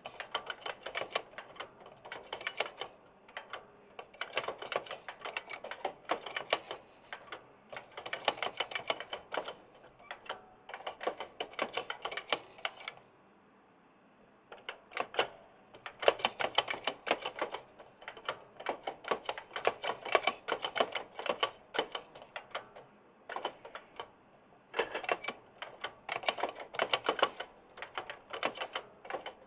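Giant mechanical keyboard with Kailh Blue clicky switches being typed on in quick runs of sharp clicks, with a short pause about halfway through.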